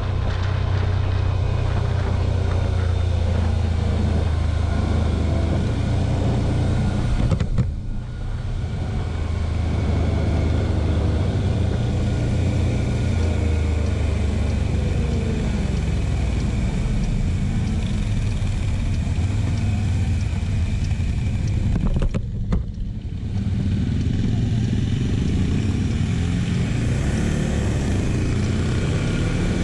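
Quad bike (ATV) engine running steadily under way, heard from the rider's position, with the engine note rising and falling as the throttle changes. The sound drops away briefly twice, about a quarter of the way in and again about three-quarters through.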